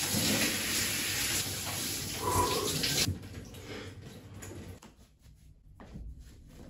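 Shower spray running as a steady hiss for about three seconds, then cutting off suddenly; quieter rustling of a towel and clothes handling follows.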